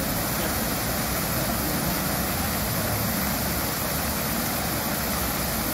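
Fountain's tall vertical water jets falling back into the pool, a steady rushing splash.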